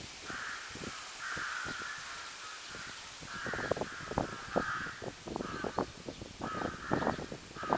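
Crow cawing: a series of about eight or nine harsh caws, some in close pairs, with short close-by scuffing knocks joining in from about three seconds in.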